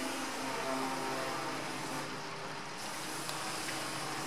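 A steady engine-like hum over a continuous hiss; the hum's pitched drone weakens about halfway through.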